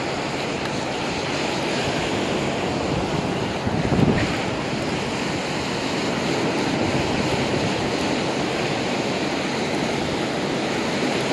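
Churning surf breaking and washing up the sand, a steady rush of waves, with wind on the microphone. A short knock sounds about four seconds in.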